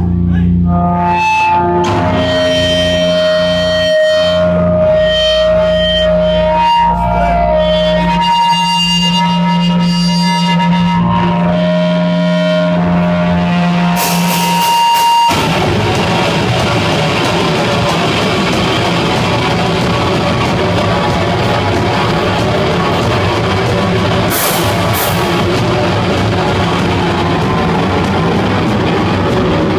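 Metal band playing live at high volume: for about the first half, sustained guitar tones shift over a steady low drone; about halfway through, the full band comes in with distorted guitars and drums in a dense, continuous wall of sound.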